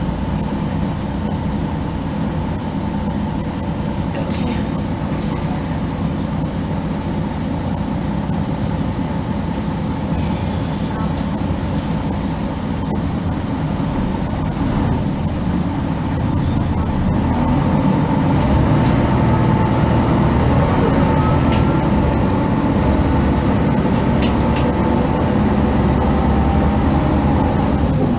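Ride noise inside a 1999 MAN NG312 articulated diesel city bus under way: the engine runs steadily and grows louder about halfway through, as a steady whine comes in with it.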